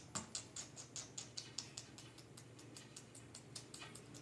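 Slime squeezed and kneaded in the hands, giving rapid small clicks and pops that thin out after about two seconds.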